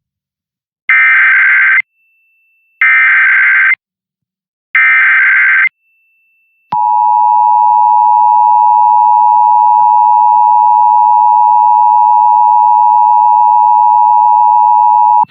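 Emergency Alert System broadcast tones: three roughly one-second bursts of SAME digital header data, spaced about a second apart, then from about seven seconds in the steady two-tone EAS attention signal (853 and 960 Hz), here announcing a Required Monthly Test.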